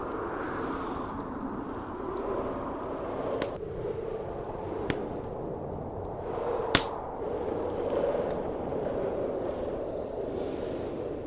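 Blizzard wind blowing in a steady rush that swells and eases slowly, with a few sharp pops from a wood fire crackling in a fireplace, the loudest pop a little past halfway.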